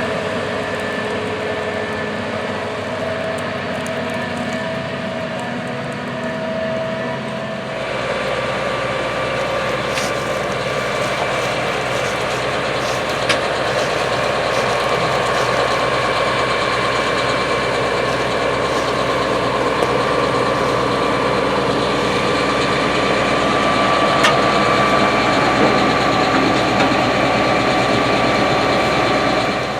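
Gleaner S97 combine running steadily while harvesting soybeans: its 9.8-litre AGCO Power diesel and threshing machinery make a continuous mechanical drone with steady whining tones. The tone changes abruptly about eight seconds in, then carries on steadily.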